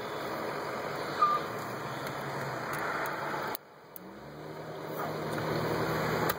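Car and road noise, a steady rushing haze that cuts off suddenly a little past halfway. It then builds up again with a low steady hum.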